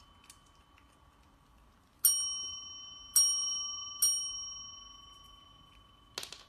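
Chrome service bell dinged three times, about a second apart, each ding ringing out and fading. A short rattle of clicks comes near the end.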